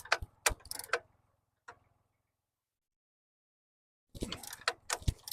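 Irregular sharp metallic clicks and clinks of a wrench working the screw bolt on a mini excavator's mechanical quick coupler. They stop for about two seconds of dead silence and start again near the end.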